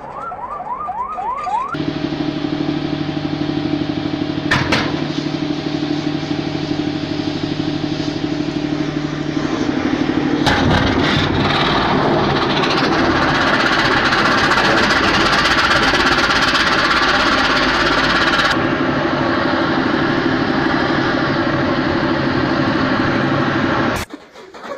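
A heavy vehicle's engine running steadily, turning louder and rougher about ten seconds in and easing back near the end, with a couple of sharp knocks; the sound cuts off suddenly just before the end. It opens with a quick run of short rising chirps.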